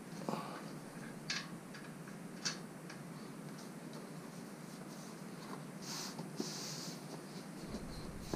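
Rubber bicycle tire being worked onto a wheel rim by hand: faint rubbing and scraping of the tire against the rim, with a few short clicks in the first few seconds and a brief hiss about six seconds in.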